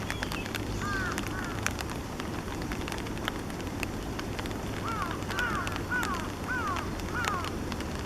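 Half-grown Eastern spot-billed duck ducklings calling: short arched peeps that rise and fall, a pair about a second in, then a run of about six in quick succession from about five seconds in. Scattered faint clicks and a steady low hum lie underneath.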